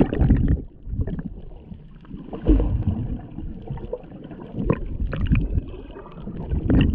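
Muffled underwater rushing and gurgling of water around an action camera held under the surface, swelling in surges about every two seconds.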